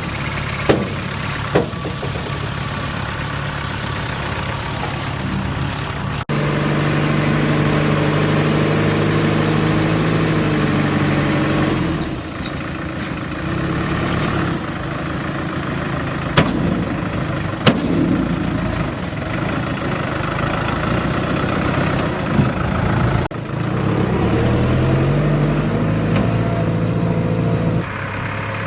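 Diesel engines of heavy construction machinery running at idle and under revs. The engine note changes pitch several times and rises about three-quarters of the way through, with a few sharp clanks.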